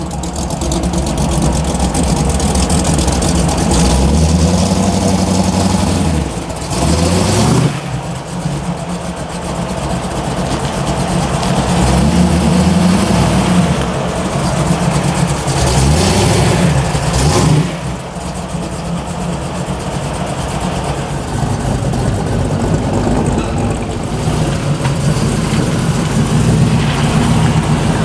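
Muscle-car V8 engines running loud and rumbling, with hard revs that climb and cut off at about seven and again about seventeen seconds in.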